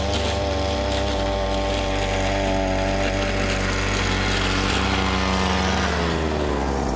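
Small gasoline grass-trimmer engine driving a homemade scooter, running steadily, then its revs drop about six seconds in as the scooter slows.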